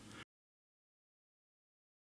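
Near silence: a faint trace of room tone cuts off about a quarter second in, leaving complete digital silence.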